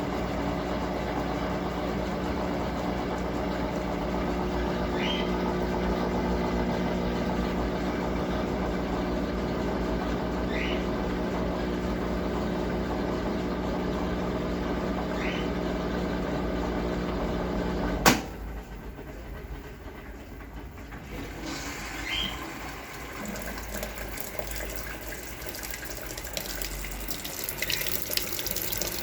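Brastemp Clean 6 kg washing machine's motor running with a steady hum and a brief squeak about every five seconds. It stops with a sharp click about 18 seconds in. A few seconds later water starts running into the machine as it fills.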